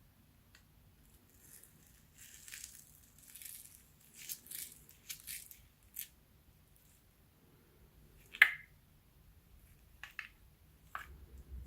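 Slime being squished and worked by hand: soft wet crackling for a few seconds, then a few sharp pops, the loudest about eight seconds in.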